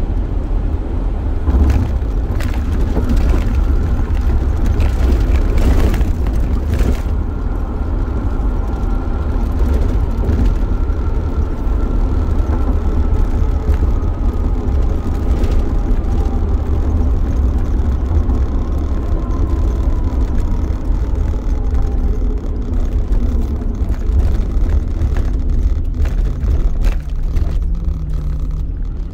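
A van being driven, heard from inside the cabin: a steady low rumble of engine and road noise, with a faint whine that slowly falls in pitch. A few knocks come in the first several seconds.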